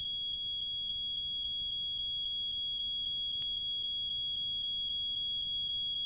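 Smoke alarm sounding one steady high-pitched tone with a faint regular pulse, about four a second, over low tape hiss. A faint click about three and a half seconds in.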